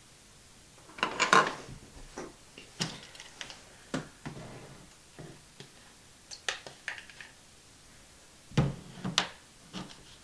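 Irregular knocks, taps and clatter of small objects being handled and set down, with the loudest clusters about a second in and again near the end.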